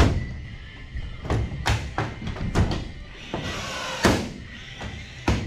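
Cordless rivet tool setting a pop rivet in a race car deck panel: a short whir as it pulls, ending in a sharp snap as the mandrel breaks about four seconds in, with another sharp click near the end. Before it come a few knocks and taps from handling the tool and panel, over background music.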